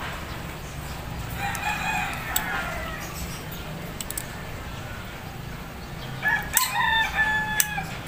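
Rooster crowing twice: a fainter crow about a second and a half in and a louder, longer one near the end. A few sharp clicks come from a fiber-optic cleaver being worked by hand.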